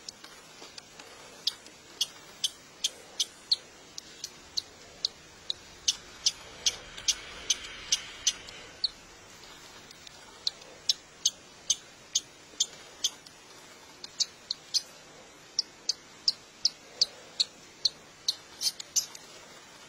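Budgerigar chick peeping from inside its cracking egg as it hatches: a long run of short, very high squeaks, about two or three a second, pausing briefly about halfway through.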